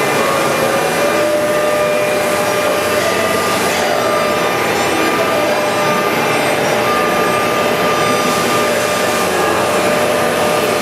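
Mikron HSM800 high-speed machining center running: a steady whine over a dense, even noise. The whine rises slightly in pitch about half a second in, then holds steady.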